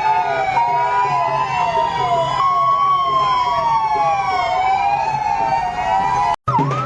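Ambulance electronic siren sounding, a slow rising-and-falling wail overlapping a quicker repeating yelp. Near the end it breaks off for an instant and comes back as a faster yelp.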